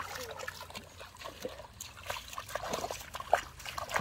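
Bare feet wading through shallow muddy water: irregular splashing and sloshing, with one sharper splash near the end.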